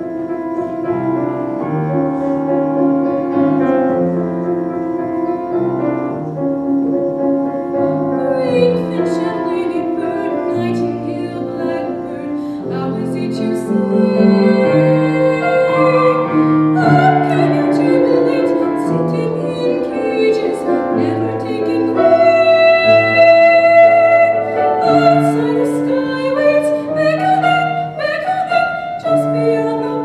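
A grand piano plays an introduction, and about a quarter of the way in a solo female voice begins singing with vibrato over the piano accompaniment.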